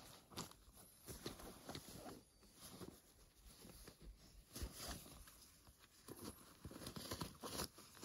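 Faint rustling and scuffing of a fabric hiking backpack being handled and rummaged through by hand, with scattered small clicks and taps.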